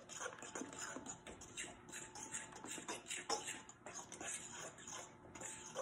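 A fork stirring wet banana-bread batter in a mixing bowl: quiet, irregular clicks and scrapes of the fork against the bowl, several a second.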